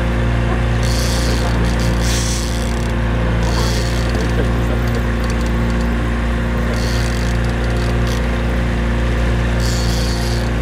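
A boat's motor running steadily, giving a constant low drone, with short bursts of hiss coming and going every second or two.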